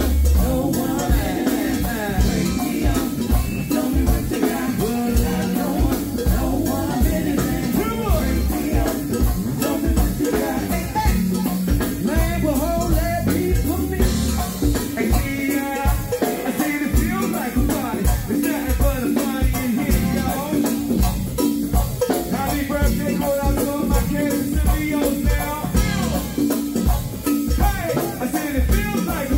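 Live go-go band playing: sung vocals over bass guitar and a drum kit with a steady, driving beat.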